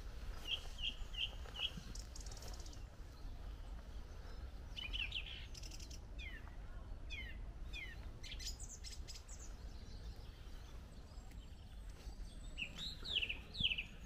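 A thrush singing in short, separate phrases of clear whistled notes, one phrase a quick four-note repeat near the start and others of falling slurred notes, with pauses between phrases.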